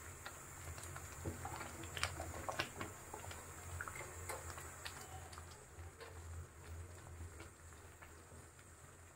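Thick milk rice pudding (caramel khir) simmering in an aluminium pot: faint, irregular pops of bursting bubbles over a low steady hum.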